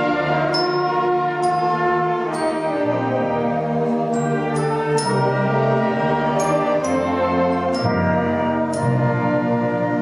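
Tyrolean village brass band playing a concert piece: held brass chords in several parts, with about a dozen short, high ringing percussion strikes over the top.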